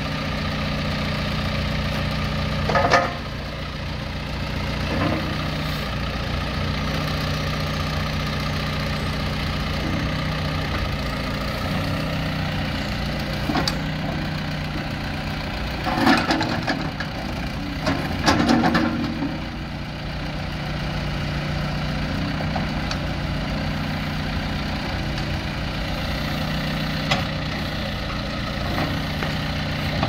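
John Deere 410L backhoe loader's diesel engine running steadily while the backhoe boom and dipper are worked hydraulically. There are a few brief louder bursts: one about three seconds in and two just past the middle.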